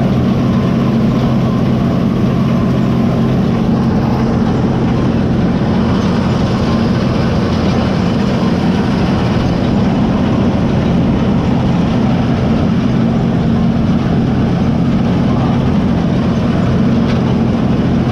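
Early axial-flow combine harvester's engine running steadily at a constant pitch, with the rushing noise of the machine working.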